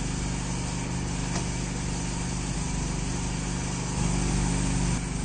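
Steady drone of a small engine or motor running, with a low hum, a little louder for about a second near the end.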